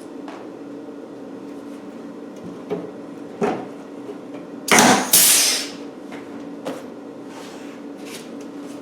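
Workshop handling noises during seat-box panel work: a few light knocks and clicks, and a loud, rough rushing noise lasting about a second around the middle, over a steady low hum.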